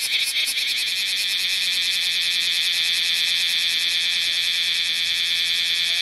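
Bear cicada (kumazemi, Cryptotympana facialis) singing: rapid pulsed chirps run together about half a second in into a loud, steady, high buzz.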